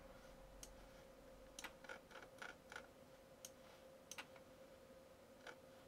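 Faint clicks of a computer mouse used to zoom in on a map. There is a quick run of about five clicks around two seconds in, and single clicks before and after. A faint steady hum runs underneath.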